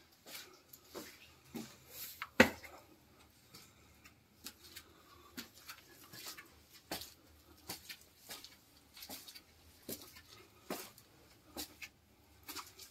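Irregular light clicks and knocks, one or two a second, with one sharper knock about two and a half seconds in.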